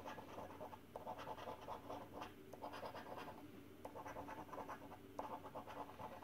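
A coin scratching the scratch-off coating from a paper scratchcard, in several short bouts of quick rasping strokes with brief pauses between them.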